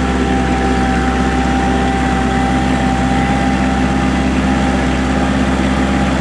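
Kubota grapple machine's diesel engine running steadily, with a thin steady whine over the engine note.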